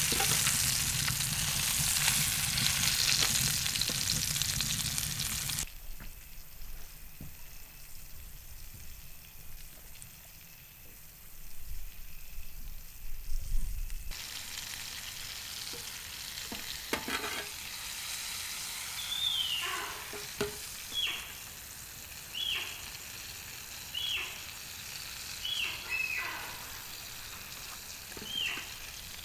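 Fish sizzling as it fries in a pan, loud at first; the sound cuts off suddenly about six seconds in and returns as a quieter sizzle. In the last third, short calls that fall in pitch repeat about every second and a half.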